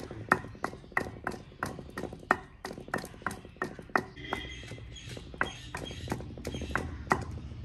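Pestle pounding garlic in a kunda, a deep traditional mortar: steady, even strikes about three a second, with a brief pause a little past halfway.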